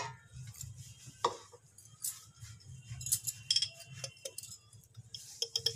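Scattered light clinks and taps of kitchen utensils against steel, a few ringing briefly, over a steady low hum.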